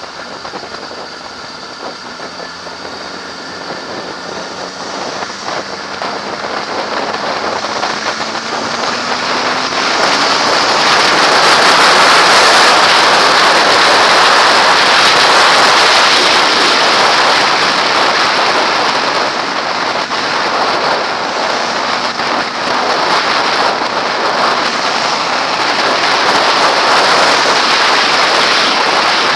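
Wind rushing over a helmet-mounted camera on a motorcycle at speed, growing louder over the first ten seconds as the bike gathers speed, then holding steady. A 2007–08 Kawasaki ZX-6R's inline-four engine runs faintly beneath it, rising in pitch during the first several seconds.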